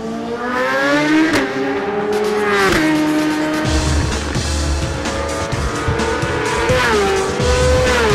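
1000 cc superbike racing motorcycle engines at full throttle, the pitch climbing and then dropping sharply at each gear change, with music underneath.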